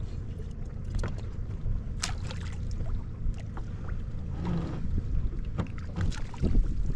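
Wind buffeting the microphone and choppy water slapping against a small boat's hull, with scattered short splashes and drips as a wet crab-trap line is pulled in by hand.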